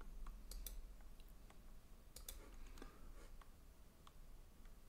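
Faint, irregular clicks of a computer mouse being clicked several times.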